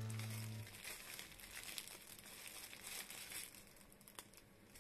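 Thin plastic bag crinkling softly as the air is squeezed out and the bag is twisted shut, with a few sharper crackles now and then.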